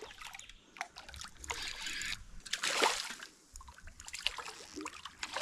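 A hooked Australian bass splashing near the surface of the creek water in a few short bursts while it is played on the line, with small clicks in between.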